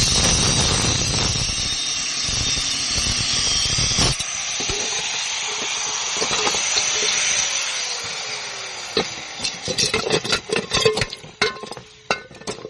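Angle grinder cutting into a fridge compressor's steel shell with a steady hiss. About four seconds in the cut eases off and the tool winds down with a falling tone. Near the end come several sharp metal clanks and knocks.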